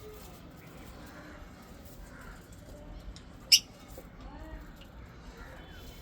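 Lovebird giving a single short, sharp chirp about three and a half seconds in, over faint soft chatter.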